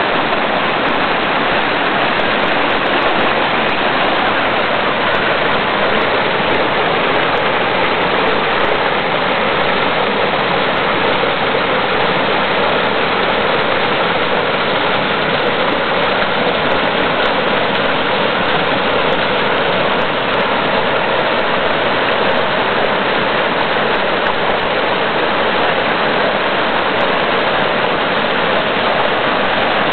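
Fast-flowing river rushing and splashing over rocks in small cascades: a steady, loud rush of water.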